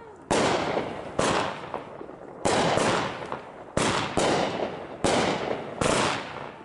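Consumer aerial fireworks bursting overhead in quick succession: about eight sharp bangs, roughly one every second or less, each trailing off in a fading rumble and crackle.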